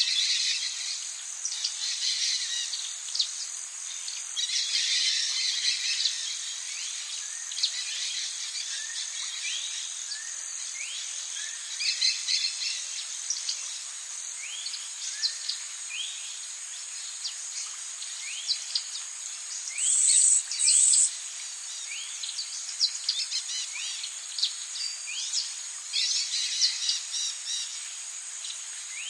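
Tropical forest ambience: birds calling in short rising chirps, repeated about once a second, over a steady high-pitched insect drone. Two brief, louder high buzzes come about two-thirds of the way through.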